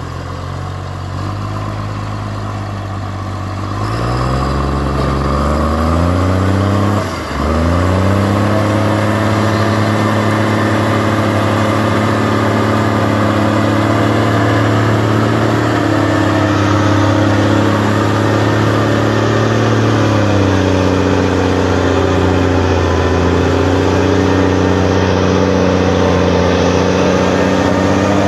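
Heavy diesel engines of a forestry machine and a loaded log truck working hard in mud. The revs climb about 4 s in and dip briefly near 7 s, then hold high under load and ease back a little about 20 s in.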